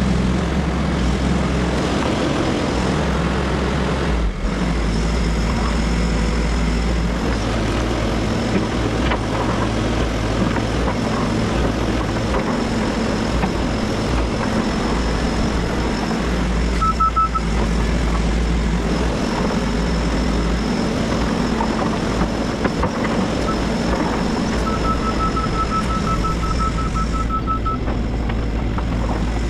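Diesel engine of an XCMG 180 hydraulic excavator running steadily. A rapid beeping alarm sounds briefly about halfway through and again for a few seconds near the end.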